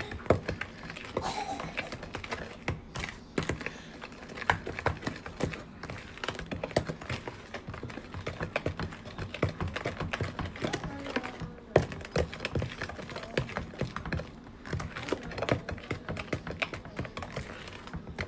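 Spoon stirring cornbread batter in a mixing bowl: a continuous, uneven run of quick clicks and taps as the spoon knocks against the bowl.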